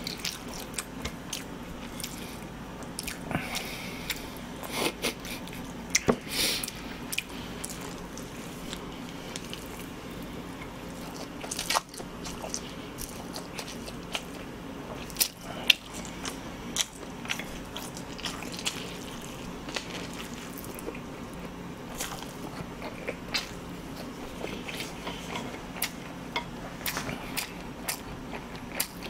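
A person eating naengmyeon-style cold noodles close to the microphone: chewing and slurping, with many scattered wet mouth clicks. The noodles are tough and rubbery, hard to chew through.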